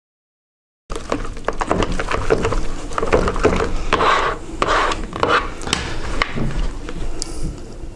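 Plastic spatula stirring and scraping thick, wet alginate mould mix around a plastic bucket: a dense run of scrapes, knocks and wet slaps that starts suddenly about a second in. This is the quick mixing of the alginate before it sets.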